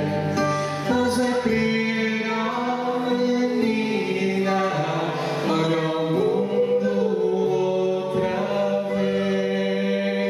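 Small mixed-voice group singing a Christian song in slow, held harmonies, with acoustic guitars accompanying.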